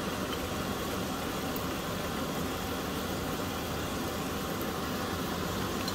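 Water boiling hard in a wok set up for steaming, a steady rushing noise.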